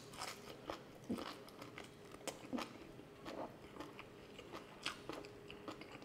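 A person chewing and biting food close to the microphone: a string of small, irregular crunches and mouth clicks.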